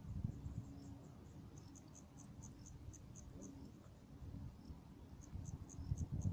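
An insect chirping in runs of short, evenly spaced high chirps, about four or five a second, with a pause in the middle. Under it is a low rumble that grows stronger near the end.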